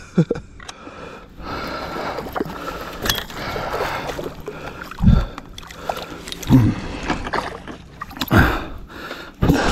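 Water splashing and sloshing as a hooked catfish thrashes at the surface beside a kayak's landing net. A few short, louder thumps come through the second half.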